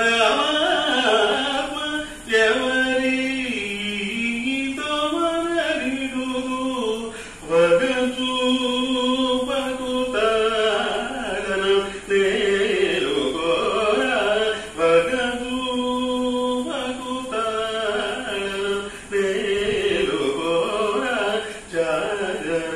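A man singing a devotional song solo into a microphone. He sings in phrases of a few seconds, with long held, ornamented notes and short breaks for breath.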